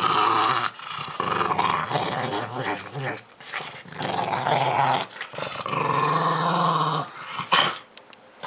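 Pug growling over a piece of squash while a hand pets his head: a string of low growls in bouts of a second or two with short breaks between them, then a brief sharper sound near the end before it goes quieter.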